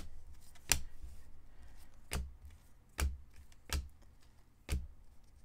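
Trading cards clicking as they are sorted through by hand: about six sharp clicks, irregularly spaced.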